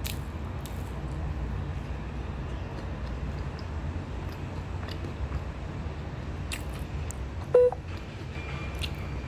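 A steady low rumble with one short electronic beep about seven and a half seconds in, the loudest sound here, and a few faint clicks.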